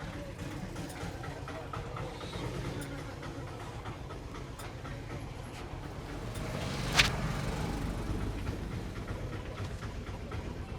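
Steady low engine rumble with faint scattered taps, and one sharp crack or slap about seven seconds in, from a barber's head and neck massage.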